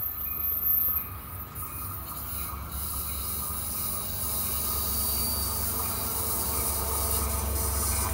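Amtrak bilevel passenger cars rolling along the platform: a steady low rumble of steel wheels on rail, with a high hiss that swells about a second and a half in and faint thin wheel squeals.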